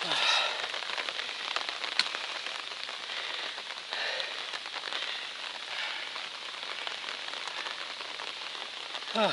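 Steady rain falling, with scattered drops ticking and one sharp tap about two seconds in.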